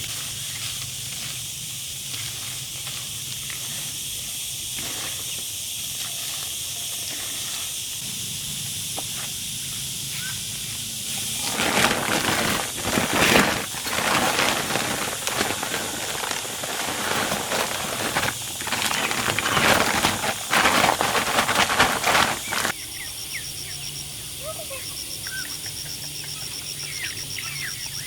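Steady high hiss of outdoor ambience, broken in the middle by about ten seconds of loud, irregular rustling and knocking. Near the end the background changes suddenly and faint chirps come in.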